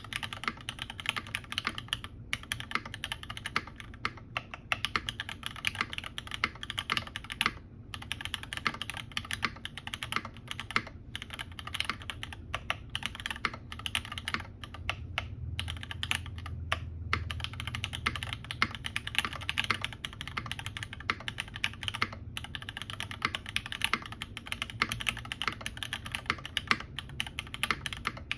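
Fast, continuous typing on a UTD 360C mechanical keyboard with lubed Cherry MX Black Hyperglide linear switches, broken in by 2 million presses, in a top-mounted aluminum plate with GMK keycaps. A steady stream of keystrokes, with brief pauses now and then.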